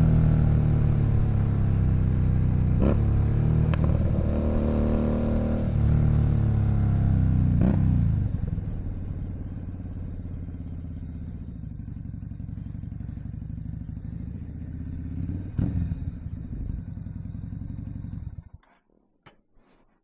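Keeway SCR 250V motorcycle engine running through a shortened custom exhaust, held at raised revs with a few quick throttle blips in the first eight seconds. It then settles to a steady idle and cuts off suddenly near the end, followed by a few faint clicks.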